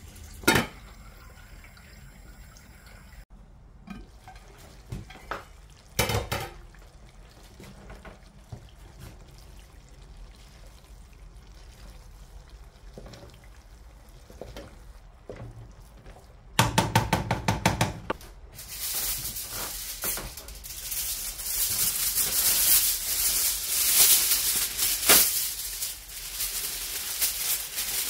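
A wooden spoon stirring rice in an aluminium pot, with a few sharp knocks against the pot. About two-thirds of the way in, aluminium foil is pulled from its roll and crinkles loudly as it is spread over the pot.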